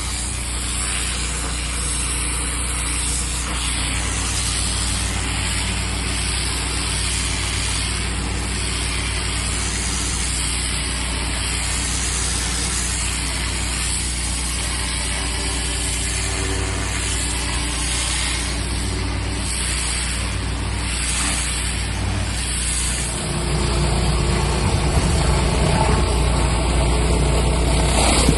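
Pressure washer running steadily, its engine droning under the hiss of the water spray; it gets louder and changes tone about five seconds before the end.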